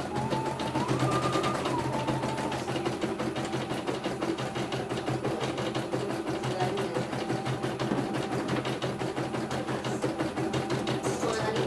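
CNY E900 computerized embroidery machine stitching out a design, its needle running at a rapid, even rhythm as the hoop carriage steps the fabric.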